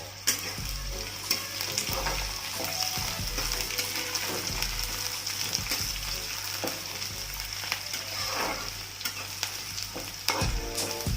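Diced potatoes, onion and green chillies frying in hot oil in a pan, with a steady sizzle, while they are stirred, the utensil clicking and scraping against the pan about once a second.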